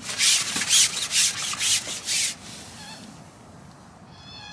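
Carbon fishing pole being pulled back hand over hand, sliding over its rest and through the hands in about five loud rubbing strokes over the first two seconds.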